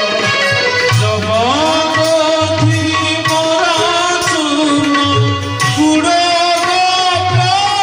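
Indian devotional bhajan music: a melody gliding up and down over a steady, repeating drum beat.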